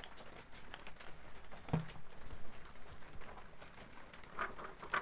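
Hand-held spray bottle misting water onto a painting: a rapid series of short squirts, then a single knock a little under two seconds in. Near the end comes the crinkle of a transparent plastic film being handled and laid over the work.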